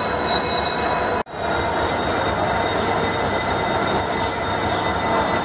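Train rolling slowly into a station behind a locomotive, its wheels squealing with a high, steady tone over the running noise. The sound drops out for an instant about a second in.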